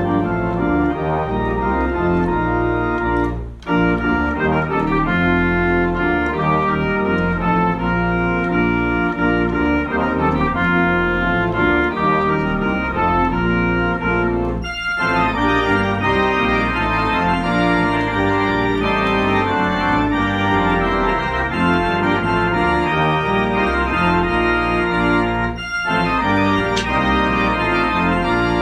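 Compton cinema organ playing a Christmas carol in full sustained chords, with short breaks between phrases about 3.5, 15 and 26 seconds in.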